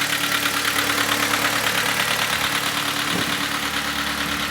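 Kia Cerato's 1.6-litre G4FC four-cylinder petrol engine idling with a fast, steady knocking that sounds like a diesel. The engine knocks and burns oil heavily.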